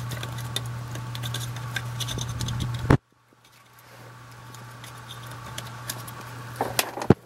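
Small clicks and scratching of hands working the plastic wiring-harness connectors onto the 2002 Toyota 4Runner's transfer case 4WD switch, over a steady low hum. The sound cuts out about three seconds in and comes back quieter, with a sharp click near the end as a connector snaps home.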